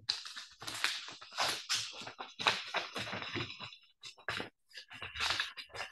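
Sheets of paper rustling and being handled close to a table microphone, in irregular bursts.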